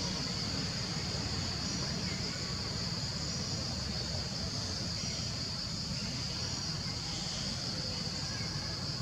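Steady, high-pitched drone of an insect chorus in tropical forest, unchanging throughout, over a low rumble.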